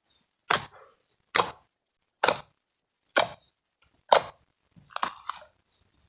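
Slime being worked by hand, giving sharp pops or snaps about once a second: five evenly spaced, then two close together near the end.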